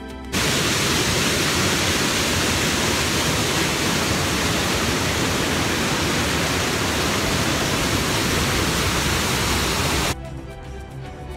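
Waterfall rushing over rock: a loud, steady, even rush of falling whitewater. Background music stops just as it begins and comes back near the end.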